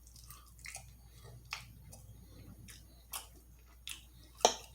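Close-miked mouth chewing food, with irregular wet smacks and clicks; the loudest smack comes near the end.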